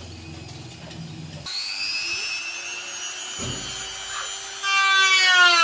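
Handheld electric rotary tool whining at high speed as it cuts the preamp opening in the wooden side of an acoustic guitar. It comes in about a second and a half in over a low hum, and near the end it gets much louder while its pitch slides down.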